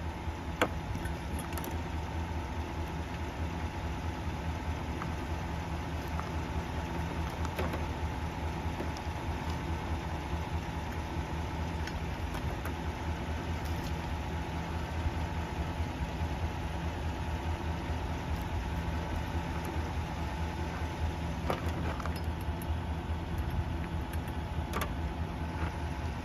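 Pickup truck engine idling steadily, with a few light clicks and rattles as a tie-down strap is fastened on the hood.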